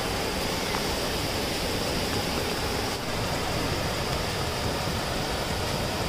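Steady rush of water from a tiered waterfall's cascades, mixed with continuous falling rain.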